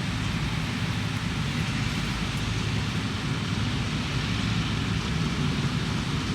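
Claas Lexion 480 combine harvester running steadily while harvesting wheat: a low, even engine drone with a broad hiss over it.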